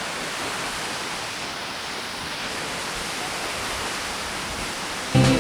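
Waterfall's steady rushing roar, close by, an even wash of water noise. Music cuts in suddenly near the end.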